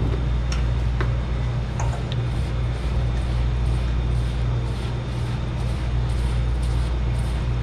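A steady low mechanical hum throughout, with a few light clicks in the first couple of seconds and the faint rustle of a gloved hand stirring dry ground spices in a stainless steel bowl.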